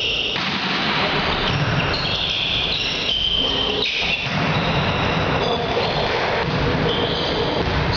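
Steady noisy din of a sports hall during volleyball play, with several brief high squeaks.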